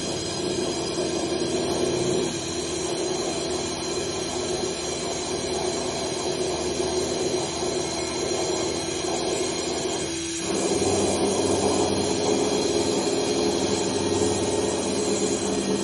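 Thermwood C67 five-axis CNC router running a program, its spindle turning at about 10,000 rpm: a steady machine hum and whine. About ten seconds in it dips briefly, then comes back louder with a changed pitch.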